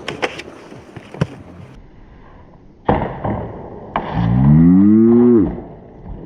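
A few sharp clicks and knocks, then two thumps, followed by a person's long drawn-out yell that rises and then falls in pitch.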